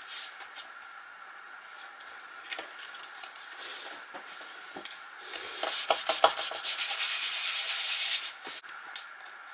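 Hands sliding and rubbing firmly across cardstock to press a freshly glued card layer flat, with a dry papery scraping and small crackles. It is loudest for about three seconds in the second half, after some lighter paper handling.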